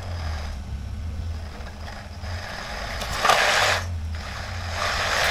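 3D printed scale excavator's hydraulic system working under load as the boom and bucket lift: a low hum from the oil pump that comes and goes, with two louder hissing bursts, one a little past three seconds in and one near the end.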